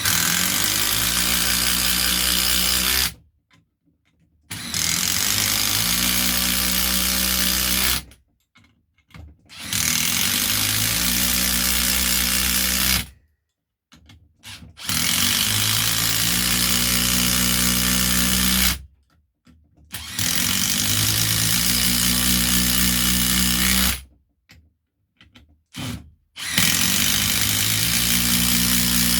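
Milwaukee brushless impact driver driving long coach screws into pre-drilled, waxed oak, in six runs of about three to five seconds each, a second or two apart, with short clicks in the pauses between screws.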